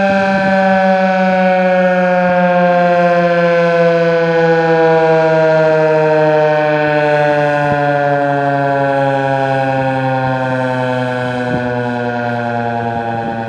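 Federal Signal 2001-130 electromechanical outdoor warning siren winding down during an Attack signal test, one loud rich tone whose pitch falls slowly and steadily, growing slightly quieter near the end.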